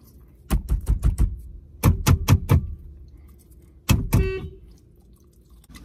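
Inside a parked car's cabin, two quick bursts of sharp knocks, four or five each, then one heavier thunk with a brief rattle after it.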